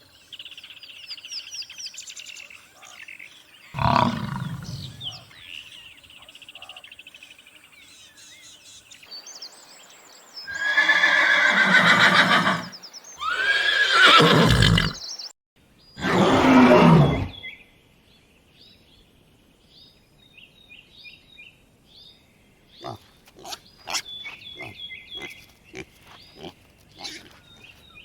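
Wild animal calls: a string of loud pitched calls, several falling in pitch, followed by softer, quick high chirps and clicks.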